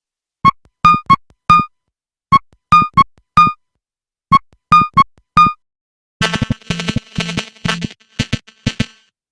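Nothing Phone (1) ringtone: a short four-note synth phrase of clipped, plucky notes, played three times with short gaps. About six seconds in, a busier electronic pattern with drum-machine beats starts.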